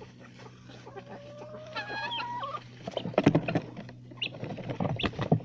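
Chickens clucking, with one drawn-out call about two seconds in, followed by a spell of rustling and scuffling.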